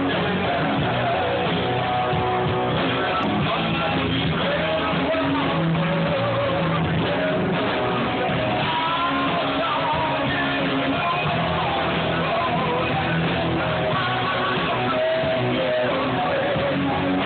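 Live rock band playing: electric guitar, bass and drum kit, with a singer's voice wavering over them.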